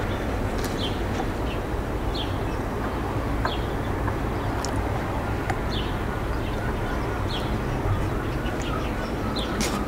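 Small birds chirping, short falling chirps every second or so, over a steady low outdoor rumble.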